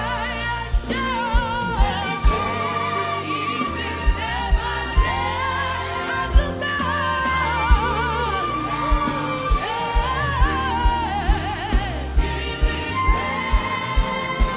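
Live gospel worship music: a lead melody sung with strong vibrato over sustained keyboard chords and a steady kick-drum beat.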